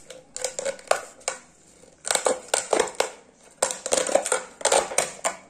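Empty thin plastic bottle crackling as it is squeezed and handled: a few scattered cracks, then two dense runs of quick crackling from about two seconds in.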